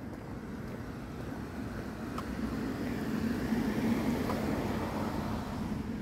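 A vehicle passing by: a steady rushing sound that swells to its loudest about four seconds in and then fades away.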